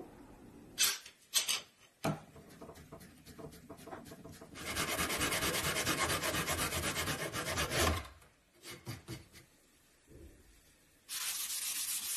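A hand saw cutting off a protruding wooden peg, with about three seconds of fast back-and-forth strokes in the middle. Before it come a few short scrapes of wood on wood as the glued peg goes into its square hole, and near the end there is one more short scraping stroke across the wood.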